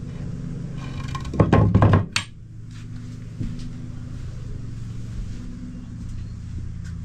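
A quick cluster of knocks ending in a thunk about a second and a half in, as things are handled and moved about the boat's wooden cabin. After it, a faint steady low hum.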